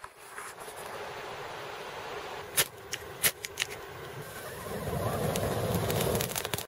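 A few sharp crackles, then for the last two seconds or so a breathy rushing noise as a smoking tinder bundle is blown on and bursts into flame.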